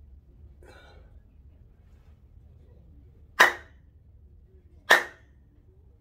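Two sharp hand claps about a second and a half apart: the two claps (kashiwade) of a Shinto shrine prayer.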